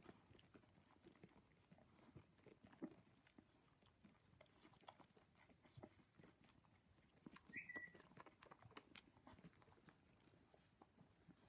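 Cocker spaniel puppies suckling from their mother: faint, irregular wet slurping and smacking. A short high squeak comes about two-thirds of the way through.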